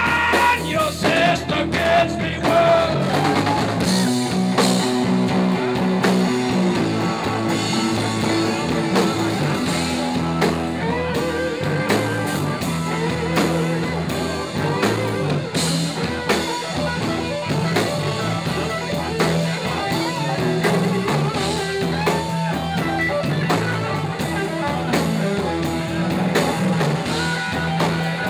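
Live rock band playing: electric guitars, keyboard and drum kit.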